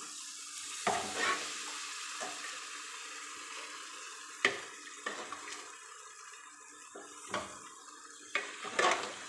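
Spiced tomato masala sizzling with a steady hiss in a steel kadai as boiled kidney beans are tipped in, with a few sharp knocks of a spatula and bowl against the pan.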